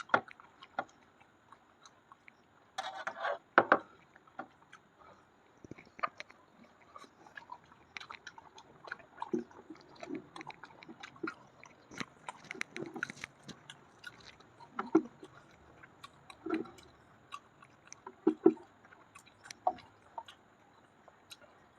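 Close-miked eating: a person chewing and biting soft sattu-stuffed puri with chicken curry, with scattered wet mouth clicks and chews and a brief louder rough burst about three seconds in.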